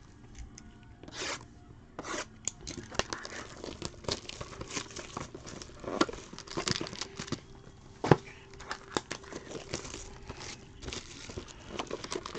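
Plastic shrink-wrap being torn off a Topps Tier One trading-card box and the box opened: a run of irregular tearing and crinkling.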